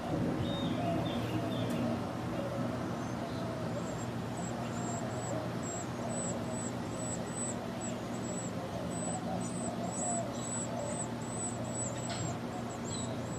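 Small bird's thin, high-pitched chirps repeating about twice a second, starting a few seconds in, over a steady low hum.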